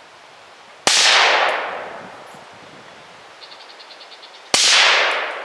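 Two suppressed rifle shots from a .223 with a Dead Air Sandman-S suppressor, firing supersonic loads, about a second in and near the end. Each is a sharp crack followed by an echo that dies away over about a second.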